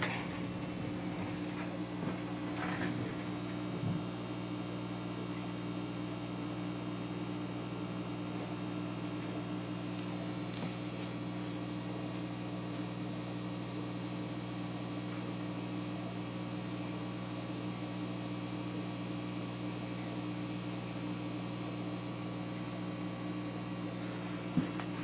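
Aquarium equipment running with a steady low electrical hum carrying a few higher overtones, unchanging throughout.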